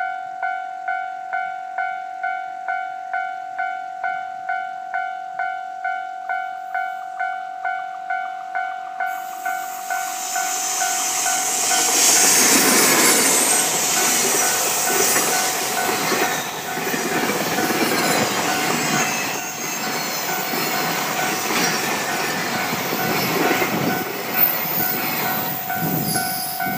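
Level crossing warning bell ringing about two and a half strokes a second throughout. About ten seconds in, an EF81 electric locomotive and its long train of container wagons arrive and pass close by, loudest at first. The rumble and clatter of the wheels on the rails then carries on over the bell.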